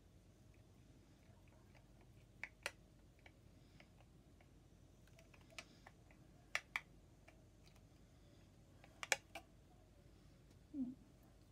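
Scattered light clicks and taps of small craft items (plastic cups, mould, wooden stir sticks) handled on a tabletop, a few sharp clicks coming in close pairs. A brief low sound near the end.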